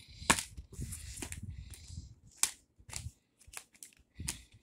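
Plastic DVD cases being handled: a few sharp clicks and knocks as cases are set down and picked up, with soft rubbing and handling noise between them.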